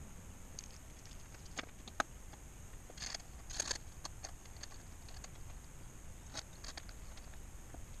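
Small clicks and light handling noises from hands fitting parts into a gauge panel: a sharp click about two seconds in, two short scraping rustles around three and a half seconds, and a few more faint clicks later.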